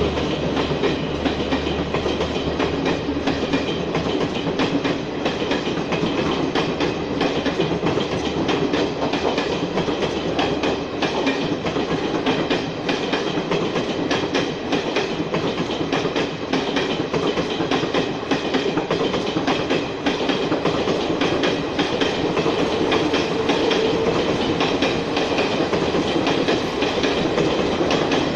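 Garib Rath Express passenger coaches running past, their wheels clattering over the rail joints in a fast, continuous clickety-clack.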